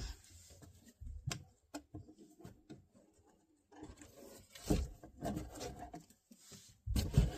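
Hands at work on a model railway layout: scattered light taps, knocks and rustling, with the loudest knocks about halfway through and near the end.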